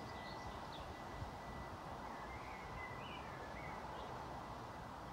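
Quiet countryside ambience: a few small birds chirping briefly over a steady low background hiss, with a faint thin high whine held steady throughout.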